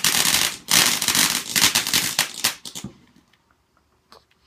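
Fireworks crackling in a dense, rapid run of sharp pops, which thins to a few scattered pops and stops about three seconds in.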